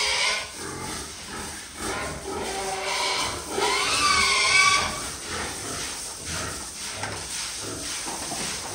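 A pen of pigs grunting and squealing, with a longer squeal about four seconds in. A garden hose sprays water over the pigs and the wet concrete floor the whole time.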